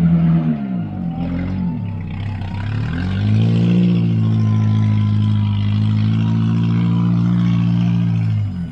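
An off-road vehicle's engine is revved under load. The revs fall away early on, climb again about three seconds in and hold high and steady, then drop suddenly near the end.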